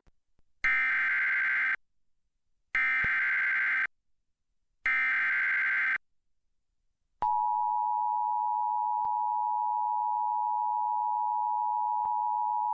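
Emergency Alert System header announcing a severe thunderstorm warning: three short bursts of SAME digital header data, each about a second long with about a second's silence between them. About seven seconds in, the steady two-tone EAS attention signal starts and holds.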